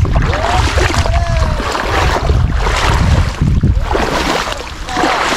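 Wind buffeting the camera microphone, mixed with water sloshing as a person wades through shallow lagoon water.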